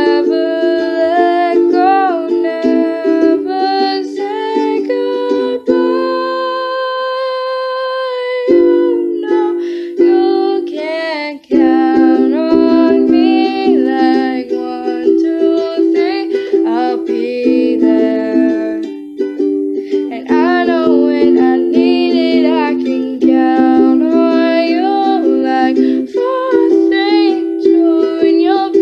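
A girl singing a song to a strummed ukulele. About six seconds in she holds one note for a couple of seconds.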